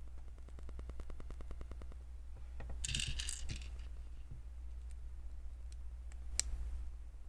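LEGO plastic pieces being handled: a fast, even run of small clicks, then a short rattle of loose pieces about three seconds in, and a single sharp click near the end.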